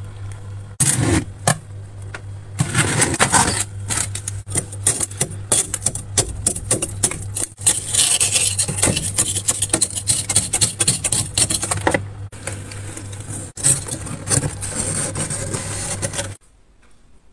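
A metal-bladed scraper scraping thick frost off the inside wall of a freezer in rapid repeated strokes, with a few short pauses. The scraping stops shortly before the end.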